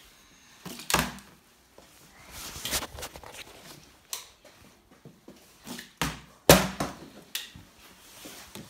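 Several separate knocks and thuds on a hard floor, the loudest two close together about six seconds in, the second with a short ring after it.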